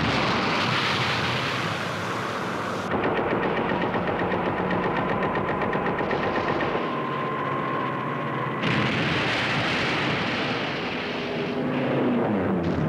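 Rapid anti-aircraft gunfire against attacking warplanes, firing in a fast steady rattle through the middle. Near the end a diving aircraft engine drops in pitch.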